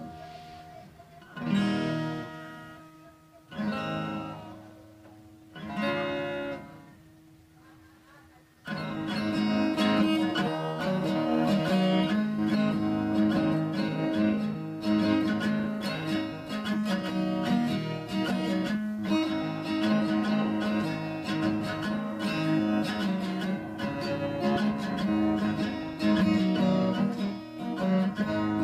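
Acoustic guitar: several single chords struck about two seconds apart and left to ring out, then, from about nine seconds in, steady rhythmic strumming.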